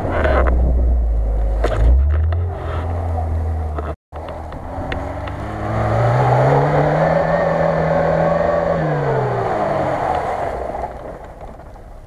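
Lada Niva four-cylinder engine working off-road: a heavy low rumble from on board the car, then, after an abrupt cut about four seconds in, an engine revving up under load, holding for a few seconds and dropping away as the Niva climbs a rutted snowy track, fading near the end.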